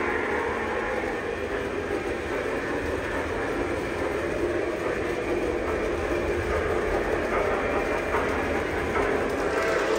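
Lionel model train running along its track, a steady running noise with no breaks.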